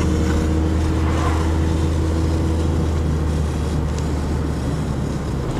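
Steady low drone of a car's engine and road noise, heard from inside the moving car.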